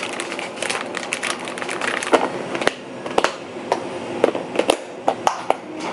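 Plastic bag crinkling as pickled radish slices are tipped into a plastic food container, then a run of sharp snapping clicks as the container's clip-lock lid is pressed shut.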